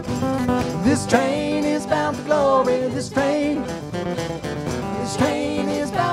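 Live band playing a country-style song with guitars, bass, drums and keyboard, a lead melody bending in pitch over the top.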